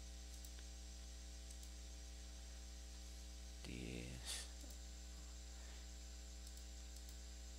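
Steady electrical mains hum picked up by the recording microphone, a low buzz with evenly spaced overtones. About four seconds in, a brief faint voice sound and a short click.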